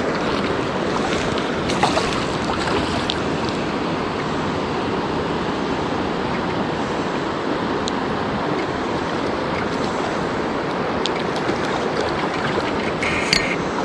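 Steady rush of fast-flowing creek water, with a few faint clicks, one near the end.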